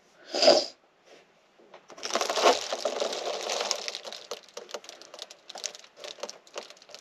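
Reflective foil bubble-insulation window cover on a truck topper being handled and pulled down, crinkling with many small crackles that start about two seconds in and thin out toward the end. A short breathy sound comes about half a second in.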